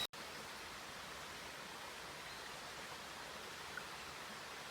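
Steady, even hiss of background noise with no distinct events, apart from one faint tick about two thirds of the way through.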